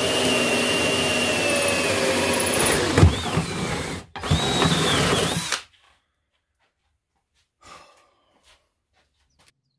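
Power drill boring a hole in two runs: about four seconds with a steady whine that dips in pitch near the three-second mark, a brief stop, then a second run of about a second and a half.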